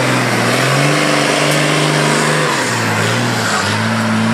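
Truck trial competition truck's diesel engine working hard as it crawls through deep mud. It revs up about a second in, drops back a little past the middle, and revs up again near the end.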